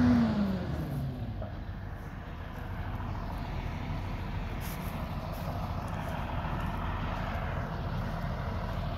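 Diesel engine of a backhoe dropping from high revs to idle in the first second, then idling with a steady low rumble.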